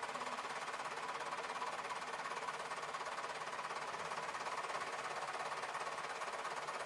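A steady, high, rapidly pulsing insect chorus.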